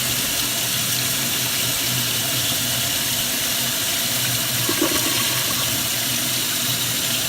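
Kohler Kingston toilet flushing on a garden-hose-fed pressure supply: a steady rush of water as the bowl siphons out and the supply keeps running.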